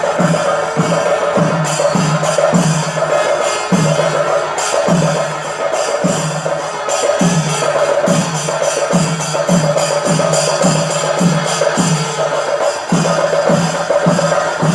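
Percussion-driven music: a regular beat of low drum strikes that drop in pitch, about two a second, over a steady held note and quicker high percussion hits.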